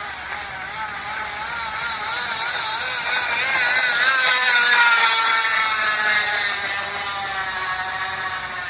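A bike's loud, high whining note with a wavering pitch. It grows louder toward the middle, then slowly drops in pitch as it fades.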